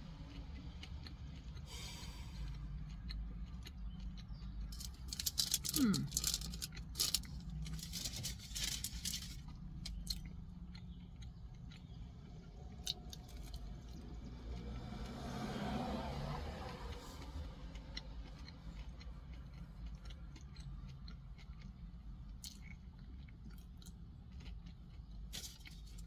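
Close-up chewing of breaded, fried mozzarella sticks, with crisp crunching bites in clusters, heaviest about a fifth of the way in. A steady low hum runs underneath.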